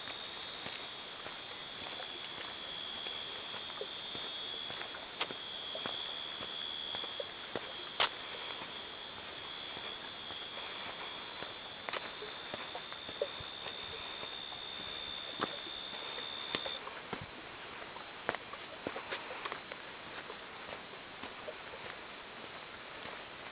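Insects calling in two steady high tones, the lower one stopping about two-thirds of the way through, over scattered light footsteps on a dry dirt path.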